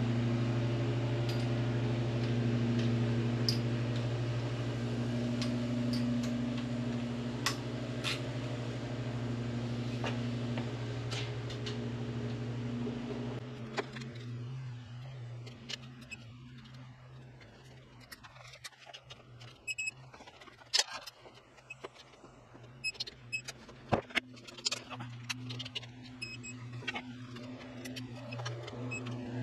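Wrench and metal hand tools clicking and clinking as the rocker plate bolts on a Harley V-twin are torqued down through a dogbone adapter. A steady low hum runs underneath and fades about halfway through, and a few short high beeps come near the end.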